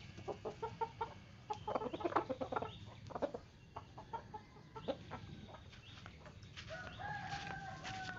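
Chickens clucking in quick runs of short notes, with one long drawn-out call starting about seven seconds in.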